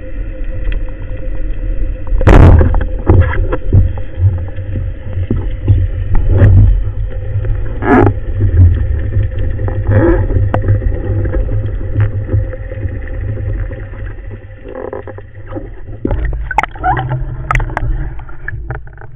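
Underwater sound picked up through a camera housing: a steady low rumble with a faint hum, broken by several sharp knocks and clatters, one about two seconds in and a cluster near the end.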